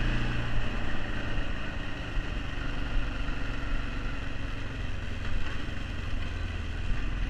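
Arctic Cat 454 ATV's single-cylinder four-stroke engine running while riding, its note dropping lower about a second and a half in, with steady wind and tyre noise.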